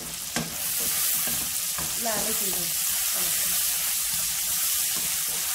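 Sliced onions sizzling in hot oil in a non-stick wok while a wooden spatula stirs them; the sizzle gets louder about half a second in, then holds steady.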